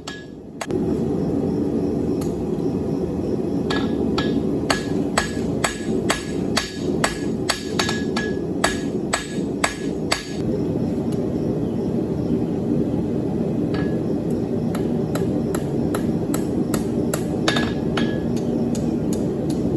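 Hand hammer blows on hot steel on an anvil, each blow with a short metallic ring. The steel is being drawn to a taper for the hook end. There is a quick run of blows, about two or three a second, for some six seconds, then a pause and a few more spaced blows. A steady low rushing noise runs underneath.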